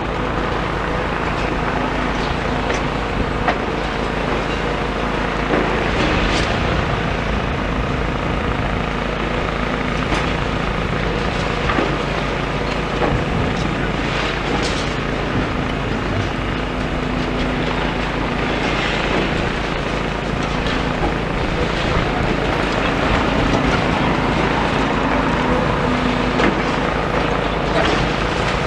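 Demolition excavator's diesel engine running steadily, with scattered knocks and crunches of rubble as it works the debris.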